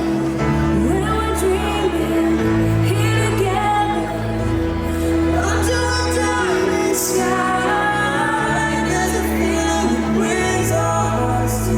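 Fireworks-show soundtrack music with singing, played over the park's loudspeakers.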